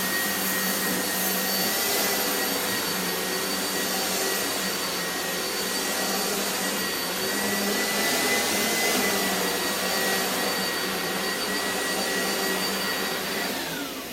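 Oreck XL upright vacuum cleaner running with a steady high whine over the rush of air. Near the end it is switched off and the motor winds down, its whine sliding lower.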